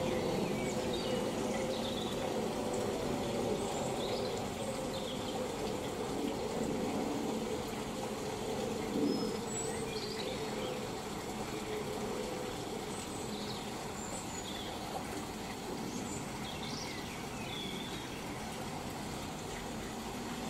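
Outdoor background: a steady low rush, with small birds chirping on and off throughout, and one brief knock about nine seconds in.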